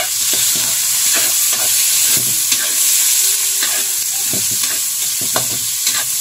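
Tomatoes, garlic, onion and ginger sizzling in hot oil in a metal wok (kawali). A spatula stirs them, scraping and clicking irregularly against the pan over the steady hiss of the frying.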